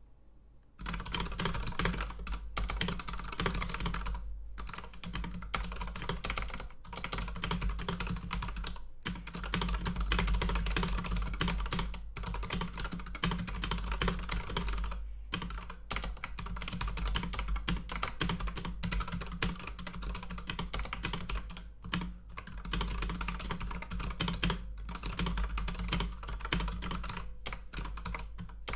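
Typing on a computer keyboard: a dense, steady stream of keystrokes that starts about a second in, with a few brief pauses along the way.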